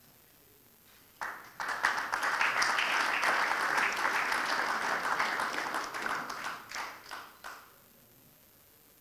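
Audience applauding: the clapping breaks out about a second in, holds strong for several seconds, then thins to a few last claps and stops near the end.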